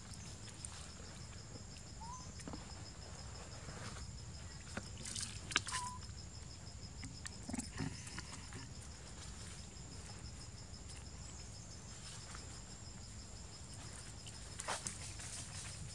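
Faint outdoor background: a steady high-pitched whine, as of insects, over a low rumble, with a few brief squeaks and small taps about two, six and fifteen seconds in.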